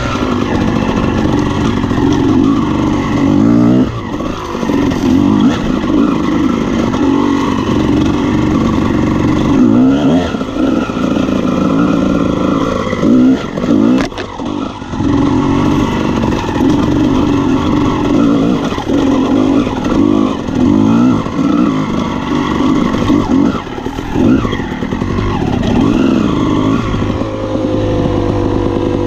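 Honda CR250R's 250cc two-stroke single-cylinder engine revving up and down again and again as the bike is ridden off-road.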